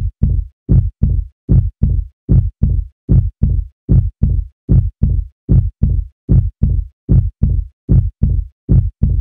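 Heartbeat sound effect: deep lub-dub double thumps repeating steadily at a little over one beat a second.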